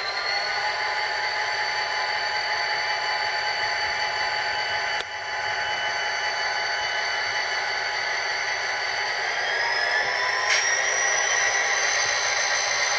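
Soundtraxx Tsunami DCC sound decoder playing an EMD SD40-2 diesel engine sound through the model locomotive's small speaker: a steady engine drone with no deep bass. Its pitch rises from about nine seconds in as the engine speeds up, and there are single sharp clicks about five and ten seconds in.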